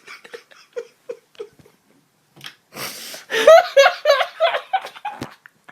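A person laughing: soft giggles at first, then a louder run of repeated 'ha' laughs from about three and a half seconds in.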